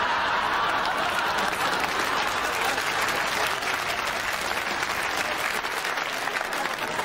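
Studio audience applauding, a loud, steady wave of clapping that eases a little near the end.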